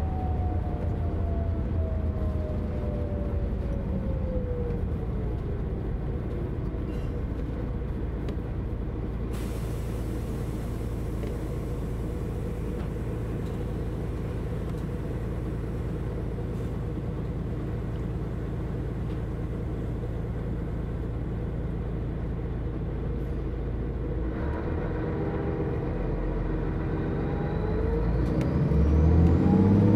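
Setra S 315 UL bus with manual gearbox: a falling drivetrain whine as it slows in the first few seconds, then a steady idle with a hiss in the middle. Near the end the engine revs up with a rising whine and gets louder as the bus pulls away.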